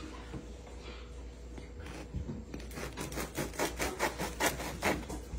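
A long knife sawing back and forth through the crust of a glazed loaf of sweet bread on a wooden cutting board. It makes a rhythmic rasping of about four strokes a second, starting about halfway in.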